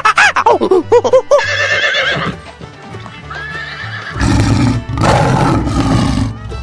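Horse whinnying: a long quavering neigh in the first couple of seconds, a shorter one about three seconds in, then a loud noisy stretch of about two seconds. Background music with a steady bass line runs underneath.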